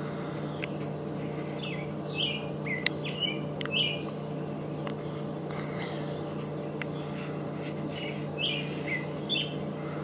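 Birds chirping: short, scattered calls, some sweeping in pitch, over a steady low hum.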